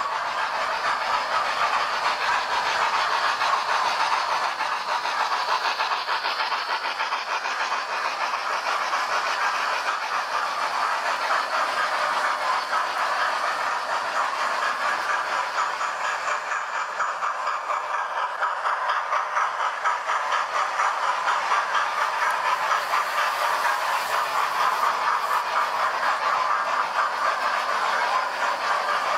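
Model trains running on the layout track: a steady whirr of small motors with a fast, fine rattle of wheels over the rails, easing a little for a few seconds past the middle.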